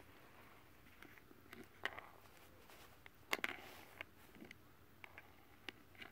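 Faint scattered taps and clicks of a small plastic toy putter and a steel ball on a cardboard miniature-golf game board, a handful in all, the sharpest about three and a half seconds in.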